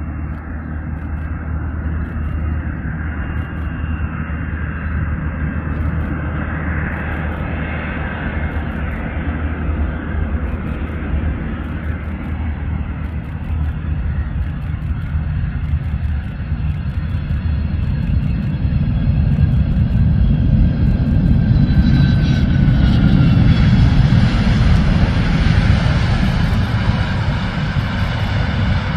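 Boeing 767 freighter's twin jet engines on approach, landing and rollout: a steady low rumble with a high whine. The noise swells to its loudest in the second half, and a whine falls in pitch about three quarters of the way through as the jet rolls along the runway.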